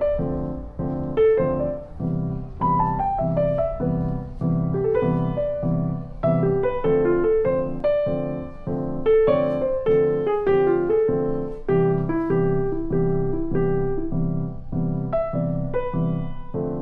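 Background piano music: a steady, even pulse of repeated chords with a melody moving above them.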